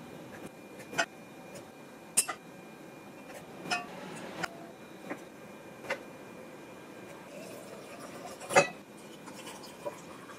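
Wooden spoon clinking and knocking against glass mason jars and a stainless steel pot as soft peach pieces are spooned into the jars. About seven separate sharp knocks, some briefly ringing, with the loudest a little after three-quarters of the way through.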